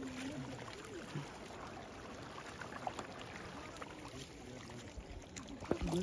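River water gently lapping and trickling against a paddled coracle, a soft steady water sound.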